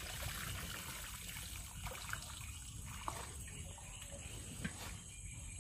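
Water trickling and dripping out of a mesh fish trap as it is lifted from a shallow creek, with a few small splashes.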